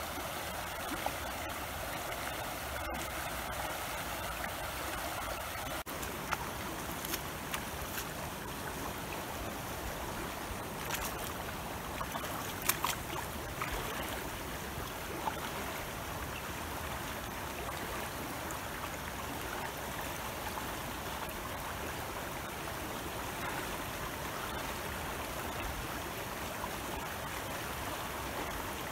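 Shallow river flowing fast over stones, a steady rush of water, with a few sharp splashes as a person wades through it.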